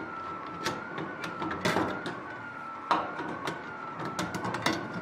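Clecos being pulled with cleco pliers to free an aluminium inspection cover: a string of sharp metallic clicks and clatters, busiest a little under two seconds in. A steady high whine that slowly rises and falls runs underneath.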